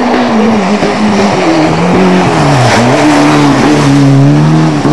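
Ford Escort RS Cosworth rally car's turbocharged four-cylinder engine running hard as it passes close by. Its pitch sags, drops sharply a little after halfway with a short sharp pop at the bottom, then climbs again.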